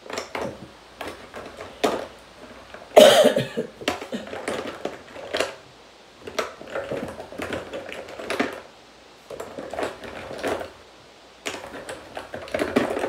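Irregular clicks and clatter of small hard containers and supplies being handled and set down, with one louder short burst about three seconds in.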